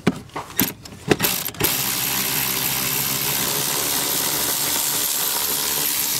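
A few clicks and knocks as a tool is set on the last hidden steering-column mounting bolt. Then, from under two seconds in, a power tool runs steadily for about five seconds, backing the bolt out.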